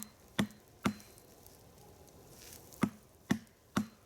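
Sharp knocks of wood striking wood: three quick blows about half a second apart, a pause of about two seconds, then three more. A log of the nodya fire is being knocked into place.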